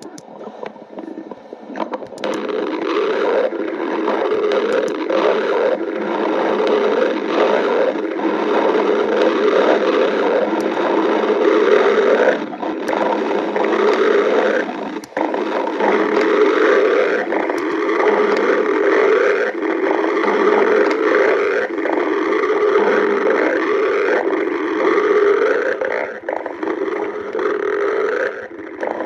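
Stomach growling and gurgling, loud and continuous, with short dips about twelve and fifteen seconds in.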